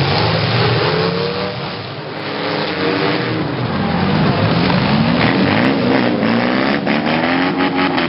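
Several demolition derby cars' engines revving up and down together, loud, with pitches rising and falling as they push and ram in the mud; a quick run of short clatters comes in the last few seconds.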